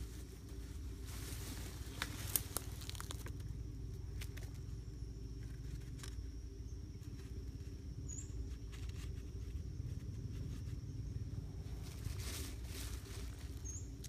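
Rustling of dry leaves and light plastic clicks as hands arrange a PVC-pipe bird trap on the ground, with a sharper click about two seconds in, over a steady low rumble.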